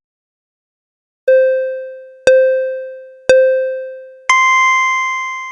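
Electronic countdown beeps: three lower tones about a second apart, then one higher, longer tone that fades out.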